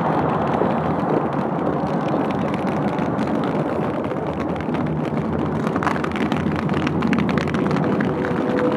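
Fireworks going off continuously: dense crackling and popping from aerial bursts and spark fountains over a steady low rumble.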